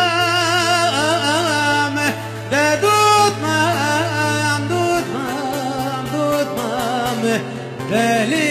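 Male voice singing a Kurdish song with heavy vibrato and gliding, ornamented phrases into a microphone, over a steady low held accompaniment note that shifts pitch about halfway through.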